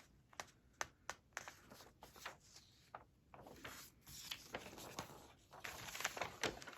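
Faint rustling of paper and soft clicks as pages of a binder of newsprint clippings are handled and turned.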